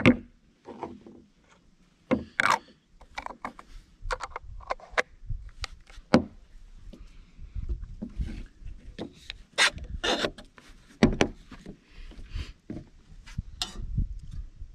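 Plastic parts of a Cafflano Kompresso portable espresso maker being handled, fitted together and set down on a wooden table: irregular clicks, knocks and short scrapes.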